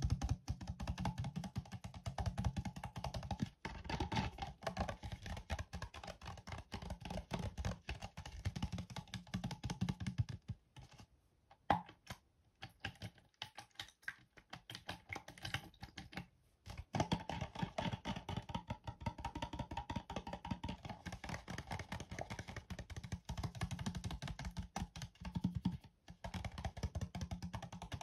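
Rapid fingernail tapping on a clear plastic cup with some water in it, a dense run of light clicks. The taps thin out to a few scattered ones for several seconds in the middle, then pick up again.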